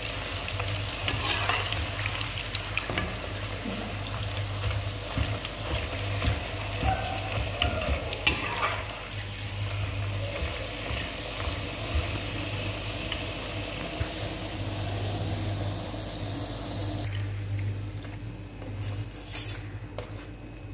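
A puri deep-frying in hot oil in a steel kadai, sizzling steadily, with the metal slotted spoon now and then clicking and scraping against the pan as it presses and turns the puri. Near the end the sizzle drops away as the puri is lifted out of the oil.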